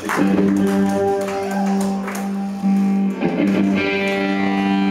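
Amplified electric guitar holding long sustained notes, with a few plucks early on; the held sound breaks off briefly twice a little past the middle and comes back.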